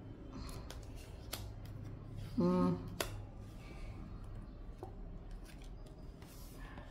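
Oracle cards being dealt and laid down on a wooden table: scattered light clicks and slaps of card stock. About two and a half seconds in, a brief hum from a person's voice is the loudest sound.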